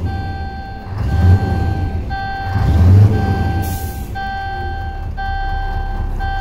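Scania R500's V8 diesel revved twice from idle, heard from inside the cab, with a short hiss of air just after the second rev. A dashboard warning buzzer beeps steadily over it in long beeps, each broken by a short gap about once a second.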